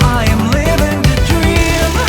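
Italo disco music: a lead line sliding up and down in pitch over a steady, fast beat.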